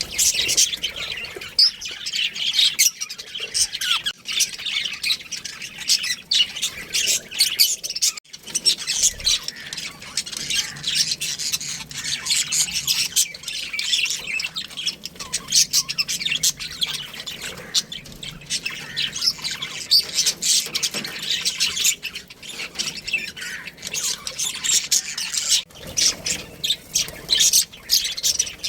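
A flock of small birds chattering continuously, many short high chirps and squawks overlapping, with a brief break about eight seconds in.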